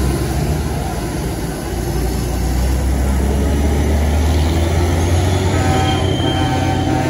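Heavy diesel engine of a large tour bus running as it passes close by: a deep, steady hum that fades away after about five seconds.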